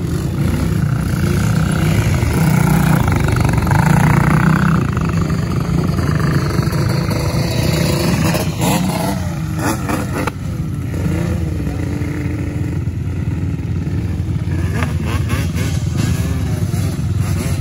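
ATV (quad) engine running steadily, with a few throttle changes about halfway through.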